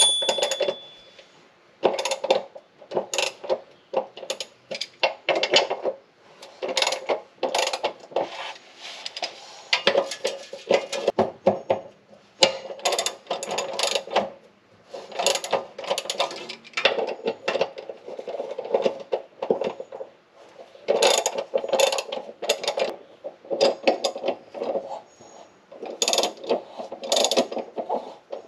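Hand ratchet wrench clicking in quick runs, stopping and starting again, as bolts holding a bracket under a car's transmission are turned.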